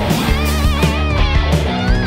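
Rock music: a guitar plays wavering, bent notes over a steady drum beat and a sustained bass.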